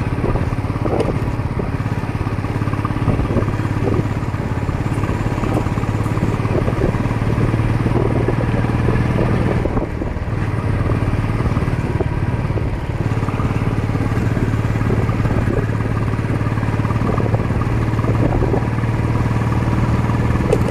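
Royal Enfield Bullet 350's single-cylinder four-stroke engine running steadily through its stock exhaust, with the note dropping briefly about halfway through and again a few seconds later.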